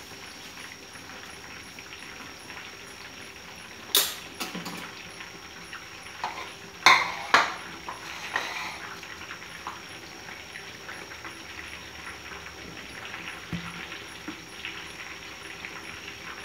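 Kitchen utensils and dishes clattering against metal in a few sharp knocks, the loudest about four and seven seconds in, over a steady low hiss.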